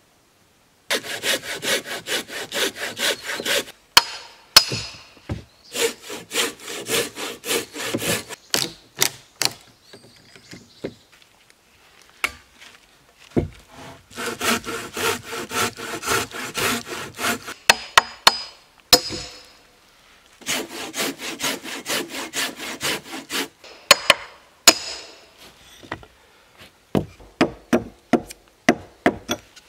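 Handsaw cutting a square timber beam by hand, in four bursts of quick back-and-forth strokes. Single sharp knocks fall between the bursts, and a run of sharp knocks comes near the end.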